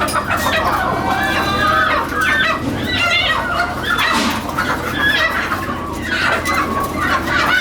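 A flock of chickens clucking and calling, many birds at once in a continuous overlapping din.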